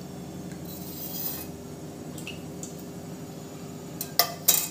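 A steady low hum, with a few sharp metallic clinks of kitchen utensils about four seconds in.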